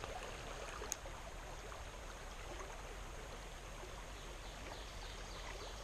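Small stream running steadily, an even wash of flowing water, with a single faint sharp click about a second in.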